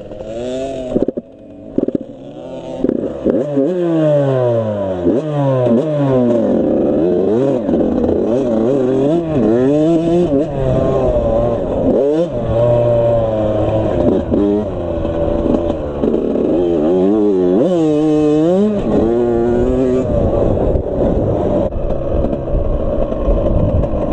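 Dirt bike engines revving up and down repeatedly as they are ridden, the pitch climbing and dropping over and over; at times two engines are heard at once, one rising while the other falls.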